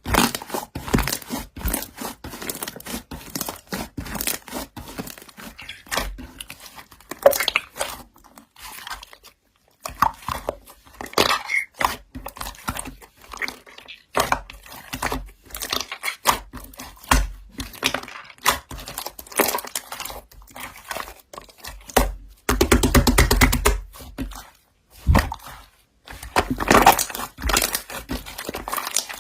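Slime being handled, crackling and popping in quick irregular clicks, with a denser, unbroken stretch of crackling near the end.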